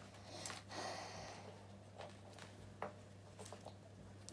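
Faint, sparse clicks of small plastic Lego pieces being handled and pressed together, with a soft rustle of noise about a second in, over a low steady hum.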